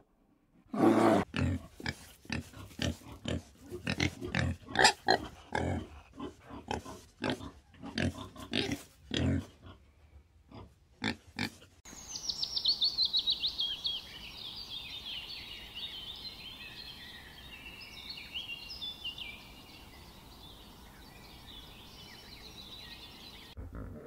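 Two bears wrestling, giving a rapid string of short, gruff grunts, two or three a second. About halfway through this gives way to a steady hiss of water with a chorus of high, chattering squeaks from bathing pelicans.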